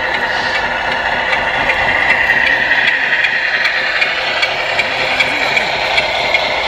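Diesel truck engine idle sounds from the sound units of 1/14 scale RC trucks, running steadily with a light rattle.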